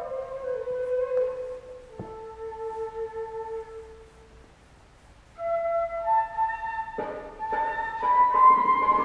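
Slow flute melody of long held notes stepping downward, fading almost to nothing a little before the middle. A new phrase begins just past halfway, and fuller accompaniment with lower notes joins about two seconds later.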